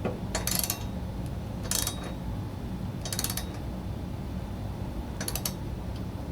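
Ratchet wrench tightening a mower blade bolt: four short runs of rapid pawl clicking as the handle is swung back between pulls.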